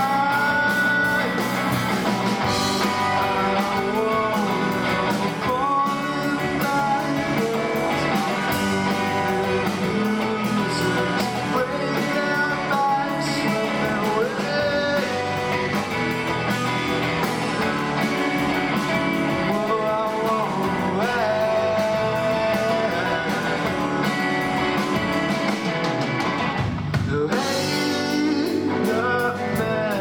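Live rock band playing: electric guitars, bass guitar, drum kit and keyboard, with a lead vocal over them. The low end drops out for a brief break near the end.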